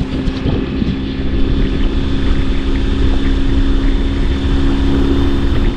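A boat motor running steadily under way, with a steady hum over a low rumble and wind on the microphone; it cuts off suddenly at the end.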